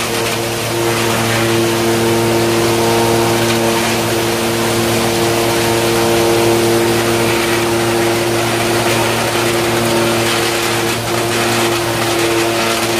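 Belt-driven wood sawdust machine running steadily: a constant hum under a noisy rushing whirr, with no change in speed.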